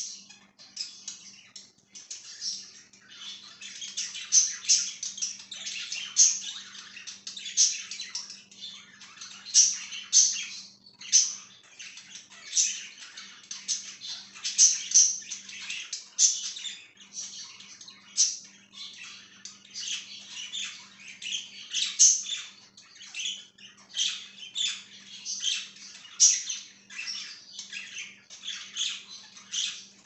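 Flock of budgerigars chattering, with a constant stream of chirps and warbles and many loud, sharp calls standing out from it.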